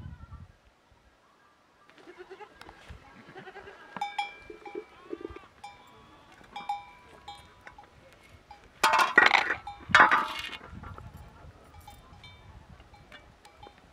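Livestock bleating, two loud cries about nine and ten seconds in, among short ringing metallic clinks.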